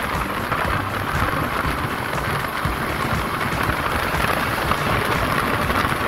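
Steady rush of wind and road noise on the microphone of a Yamaha Mio scooter riding at speed.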